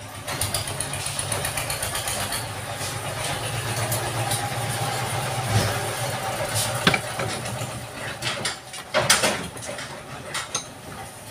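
A steady mechanical hum runs through most of the clip. Sharp metal clunks come at about seven and nine seconds in, as the heavy demolition hammer is handled and set into a steel bench vice.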